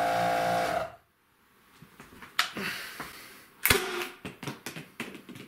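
A small air compressor hums steadily and cuts off about a second in. A little past halfway the homemade PVC air cannon fires once with a single sharp pop of released air, followed by a scatter of light taps and clatters as the Rival foam balls bounce around.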